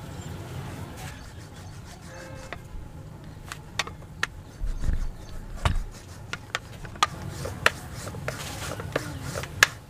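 Stainless-steel rolling pin rolling out a small round of dough on a marble board, with irregular sharp clicks and knocks against the board from about three and a half seconds in, and a few duller thumps around five seconds in.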